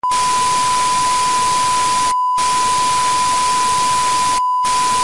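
Static-noise effect: a loud, even white-noise hiss with a steady high-pitched beep tone through it. The hiss cuts out briefly twice, about two seconds in and again near the end, while the beep holds.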